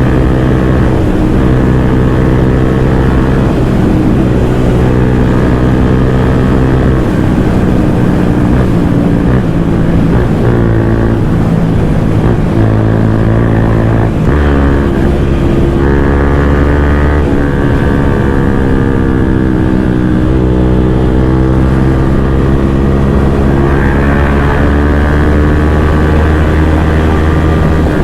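Bajaj Pulsar N160's single-cylinder engine through an aftermarket full-system exhaust, ridden hard: the pitch climbs and drops several times as the bike is revved up and shifted.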